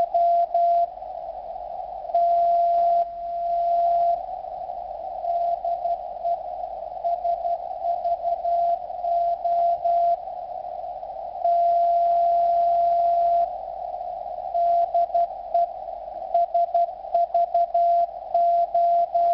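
Morse code from the Olympia Radio (SVO) coast station on 8424 kHz, heard through a Yaesu FT-897 receiver in CW mode: a steady tone of about 700 Hz keyed on and off over a band of receiver static. Twice it holds a long unbroken tone of about two seconds, near the start and midway.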